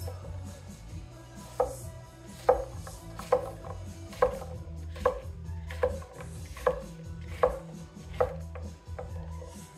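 HSC3 Apex Ultra gyuto chef's knife chopping zucchini into cubes on an end-grain wooden cutting board: a regular series of about ten crisp knocks, a little under one a second, each with a short ring.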